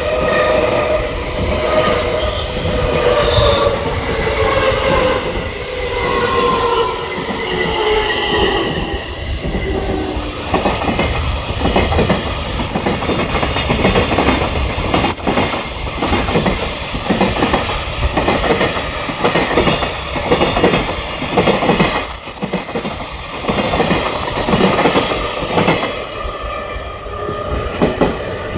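Electric train on the JR Kobe Line. Its motor tones fall in pitch over the first ten seconds or so, then the wheels keep up a steady clickety-clack over the rail joints, a bit more than one knock a second.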